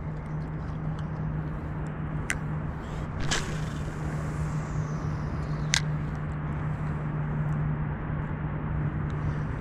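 A cast with a spinning rod and reel: a sharp click about two seconds in, a swish of the rod and line a second later, and another sharp click from the reel near the six-second mark, over a steady low hum.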